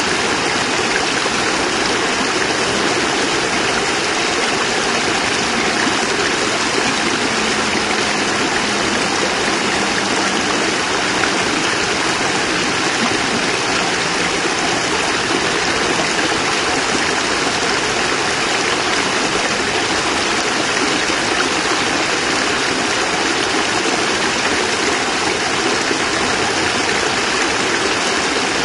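Small cascade of water pouring steadily over rocks into a stream, an even, unbroken rush.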